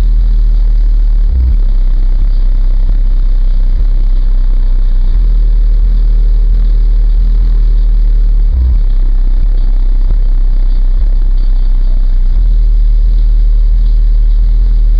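Car-audio subwoofers playing a bass-heavy track at very high volume, deep low notes that shift every few seconds, with short punchier hits about a second and a half in and again about eight and a half seconds in.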